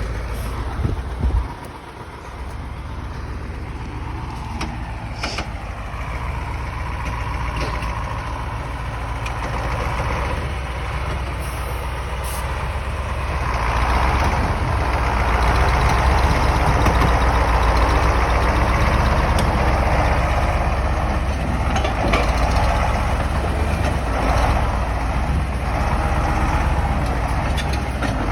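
KamAZ 6x6 truck's diesel engine running under load as it drives over rough ground. There is a brief knock about a second in, and the engine gets louder about halfway through, then stays there.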